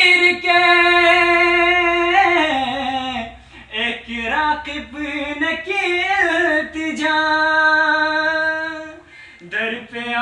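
A man singing a manqabat (devotional praise song) unaccompanied, in a high voice with long held notes and ornamented downward runs. He pauses briefly for breath about three and a half seconds in, then pauses again near the end.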